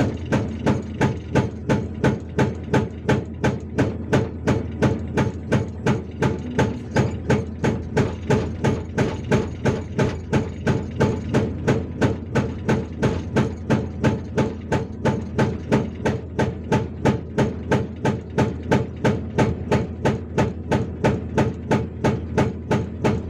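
Hydraulic breaker on a Hyundai R480LC-9S excavator hammering rock with steady, evenly spaced blows, about two a second, over the excavator's diesel engine running under load. The chisel is breaking a boulder stump into medium pieces.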